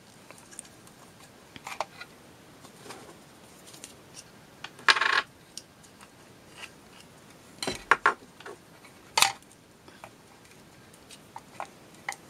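Irregular clicks, knocks and a short scrape of small plastic parts being handled as the flyer and bobbin of an Electric Eel Wheel Nano e-spinner are taken apart for lubricating; the motor is not running. The loudest sounds come about five seconds in, in a cluster near eight seconds and as a sharp knock about nine seconds in.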